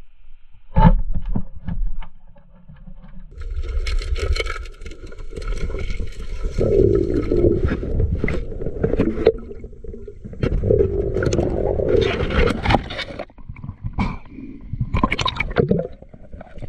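Underwater noise heard through the camera: bubbling and rumbling with scraping and many short knocks, with a sharp knock about a second in.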